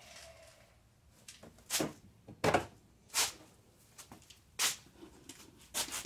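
A pry tool working at the edge of a plastic car door trim panel: about five short, sharp plastic clicks and knocks, irregularly spaced, the loudest about two and a half seconds in.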